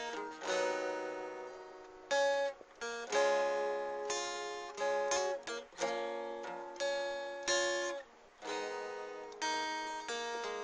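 Solo guitar playing instrumental music: a series of strummed chords, each struck sharply and left to ring and fade, with no bass or drums.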